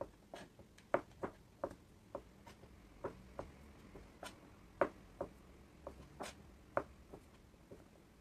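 Kitchen knife slicing sausages on a cutting board: a run of uneven knocks as the blade goes through each round and strikes the board, about two a second.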